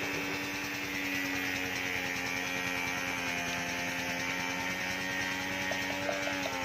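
Background music: a low chord held steady as a drone.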